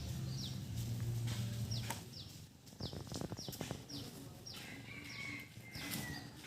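Outdoor ambience of birds chirping: short high notes that fall in pitch, repeated about twice a second. A low steady hum lies under the first two seconds, and a quick run of clicks comes about three seconds in.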